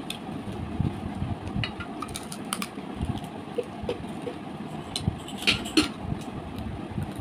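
A person eating fish by hand: chewing and wet mouth clicks with small finger-on-food noises, over a steady low hum. A few sharper clicks come about five and a half seconds in.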